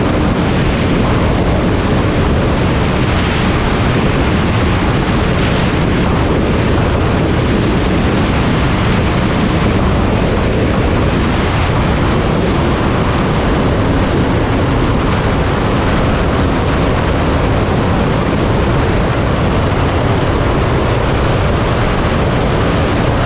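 Steady wind rush on the microphone over a KTM 500 EXC's single-cylinder four-stroke engine running, with the bike moving at speed.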